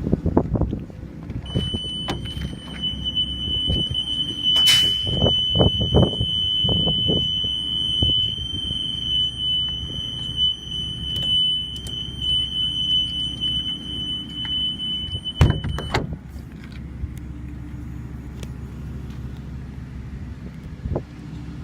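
A continuous high-pitched electronic buzzer tone on a school bus sounds for about fourteen seconds over the low hum of the gasoline engine idling, then cuts off abruptly. A few thumps come in the first seconds.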